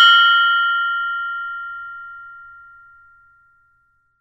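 Meditation (mindfulness) bell ringing out just after being struck: a clear ring of several tones dying away evenly over about three and a half seconds, the lowest tone lasting longest.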